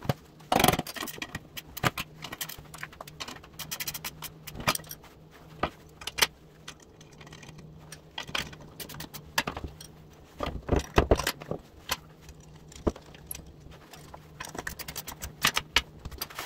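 Metal hardware clinking and clicking as nuts, bolts and a wrench are worked to mount LED pod lights on a metal bracket. The sharp clicks come irregularly, over a faint steady low hum.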